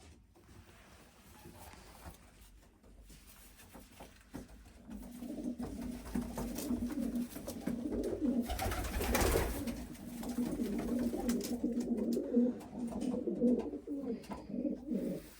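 Racing pigeons cooing, a low wavering coo that grows from about five seconds in and carries on to the end. A brief rush of noise comes around the middle.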